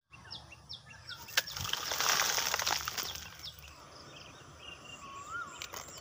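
Birds chirping in short, repeated high calls, with a louder stretch of rustling noise from about one and a half to three and a half seconds in, and a single rising-then-falling whistled note near the end.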